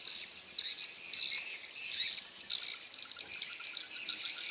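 Steady high-pitched chorus of insects chirring, with a faint, rapid, even pulsing joining in about halfway.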